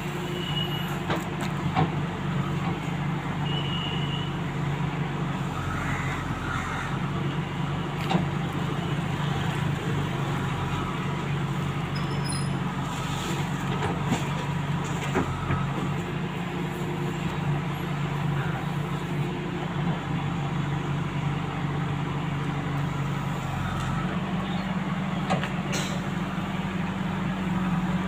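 JCB 3DX backhoe loader's diesel engine running steadily as the backhoe arm digs and dumps earth into a tipper truck, its pitch stepping up near the end, with a few brief knocks.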